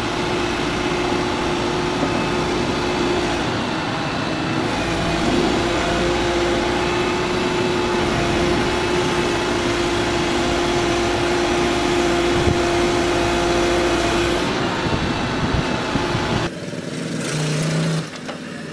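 Diesel engine of a Volvo crawler excavator running steadily, with a constant humming tone over the engine noise. About sixteen seconds in, it cuts off abruptly to a quieter vehicle sound.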